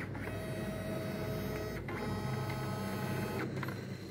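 Kyocera M2040dn copier's flatbed scanner running a scan: the scan head's motor runs with a steady pitched whir in two stretches, split by a brief pause near the middle, and stops about three and a half seconds in.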